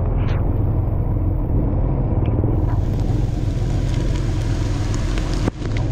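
Motorbike riding along a wet, muddy track: a steady low rumble of its engine and wind buffeting the microphone. From about two and a half seconds in, a hiss of heavy rain and water spray joins it, and the sound briefly drops out near the end.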